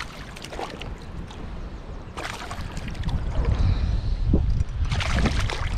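Hooked largemouth bass thrashing and splashing at the surface in three short bursts, about half a second in, around two seconds in and near the end, over a heavy wind rumble on the microphone.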